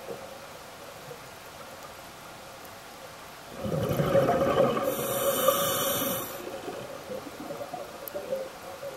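A scuba diver's exhaled breath bubbling out of the regulator, one gurgling rush of bubbles lasting about three seconds, starting a few seconds in, over the steady hiss of the underwater camera housing.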